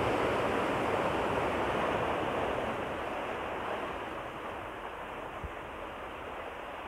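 Sea waves washing in over a rocky shore, a steady rush that swells over the first few seconds and then eases off.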